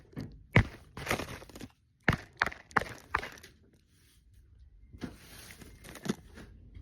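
Irregular footsteps on a hard surface: a handful of sharp knocks with scuffing between them, then a pause and more scuffing near the end.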